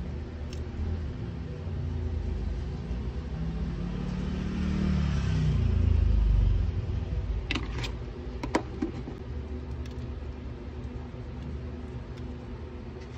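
A motor vehicle's engine rumble, swelling to a peak about five to six seconds in with its pitch falling, then easing off as it passes. A few sharp clicks come a couple of seconds after the peak.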